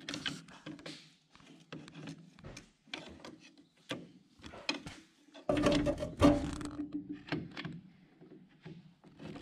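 Long screwdriver levered and wiggled against a clogged grease zerk on a baler's gear housing: scattered metal clicks, knocks and scrapes, with a louder clatter a little past halfway.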